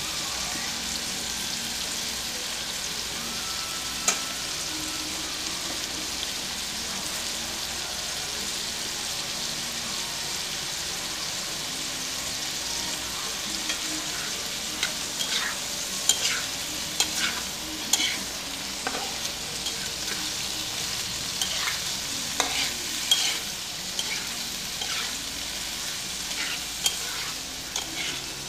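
Shrimp sizzling in hot oil in a wok, a steady frying hiss. About halfway through, a metal spatula starts stirring and tossing them, with short scrapes and knocks against the pan.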